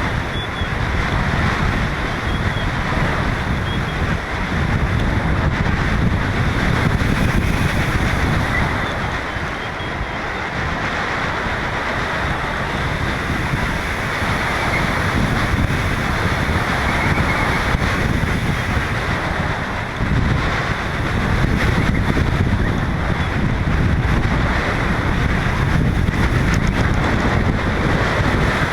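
Wind rushing over a GoPro camera's microphone: a steady, loud deep rumble of wind noise that swells and eases a little.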